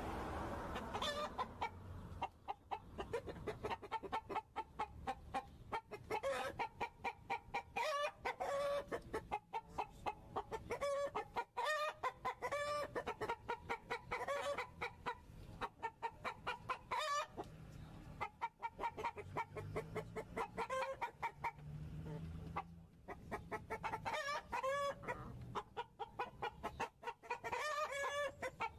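Barnevelder hens clucking, a busy run of short bending calls with a few brief lulls.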